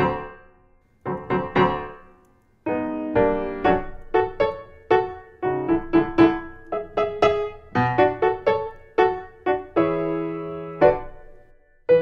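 Piano music: a melody of separate notes that ring and fade, breaking off briefly about two seconds in, then returning with the notes coming faster.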